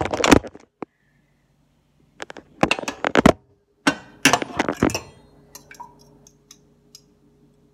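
A fork beating raw eggs in a bowl, clattering against its sides in three spells of rapid clinking: one right at the start, one about two seconds in and one about four seconds in, then a few lighter taps.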